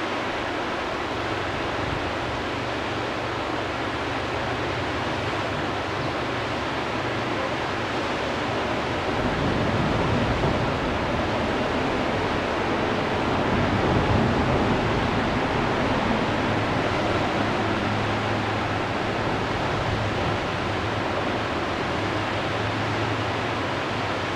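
Whitewater rapids on a big river wave rushing steadily, a dense hiss of crashing water that swells a little louder and deeper through the middle.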